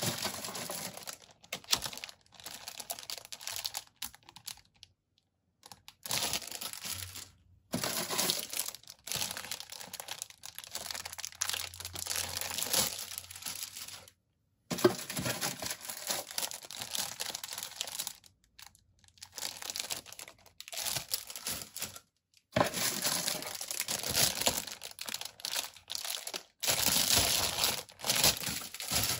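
Clear plastic bags crinkling as bagged plastic model-kit sprues are handled and lifted out of a cardboard box, in stretches of rustling broken by several short gaps.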